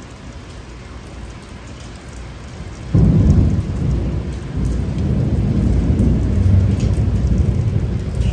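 Steady rain, then a thunderclap about three seconds in that rolls on as a long, low rumble.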